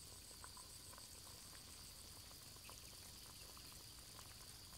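Faint bubbling of a pot of chicken soup simmering: small irregular pops over a low hiss.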